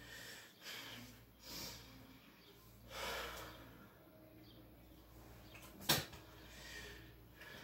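Faint rustling of bedding and a few heavy breaths from a person lying on a bed, with one sharp click about six seconds in.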